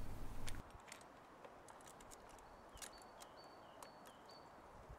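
Faint scattered clicks of a chainsaw chain being handled and seated onto the bar and drive sprocket of a Husqvarna 450 during a chain change, with a few short high chirps.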